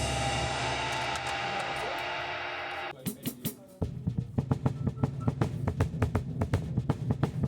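Band at rehearsal: a held closing chord with a ringing cymbal, cut off suddenly about three seconds in. A few loose drum hits follow, then the drum kit starts a steady beat with bass underneath.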